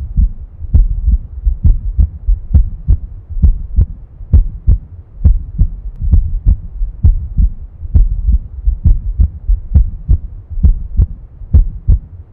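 Human heart sounds: a steady lub-dub, the first and second heart sounds (S1 and S2) in close pairs, a little more than one beat a second.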